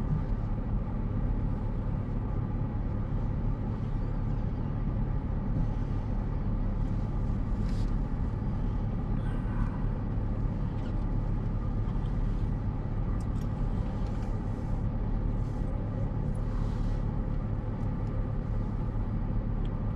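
Steady low hum of a car's running engine heard from inside the cabin, with a few faint ticks.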